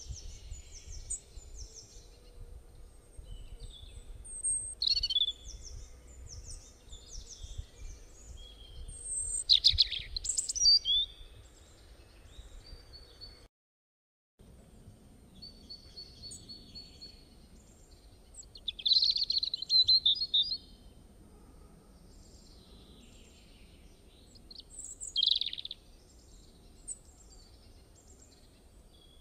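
Small birds chirping and trilling in short, varied calls, with louder clusters of calls a few times and a brief total dropout about halfway through.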